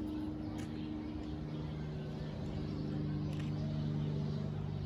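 A motor or engine running with a steady low hum.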